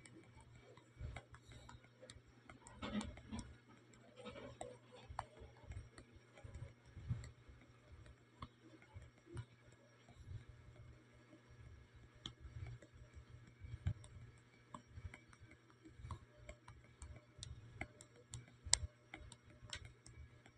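Faint, irregular ticks and taps, a few a second: a fingertip tapping on a phone's touchscreen, heard through the phone itself.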